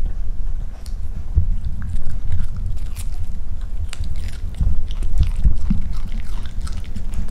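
Bichon Frise puppy gnawing on a dog chew: irregular crunchy bites and small clicks of teeth on the chew.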